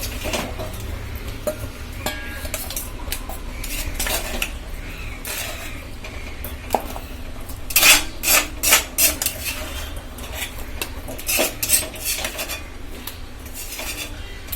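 Metal spoon scraping and clinking against a cooking pan as thick crab gravy is scooped out into a serving dish: irregular clinks and scrapes, busiest past the middle, over a steady low hum.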